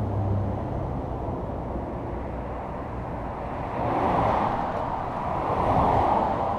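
Road traffic passing by: a steady rumble with two vehicles swelling past, about four and six seconds in.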